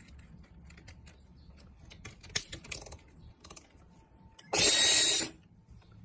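Keyless chuck of an 18-volt cordless drill clicking as it is hand-tightened onto a rusty nail, with a louder run of clicks a little after two seconds in. Then the drill motor runs loudly for under a second, spinning the chucked nail.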